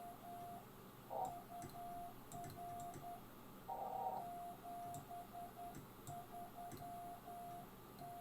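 Morse code (CW) on a ham radio: a single steady tone keyed on and off in dots and dashes at an even pace. Twice, about a second in and again around four seconds, a brief louder burst of noise covers the tone.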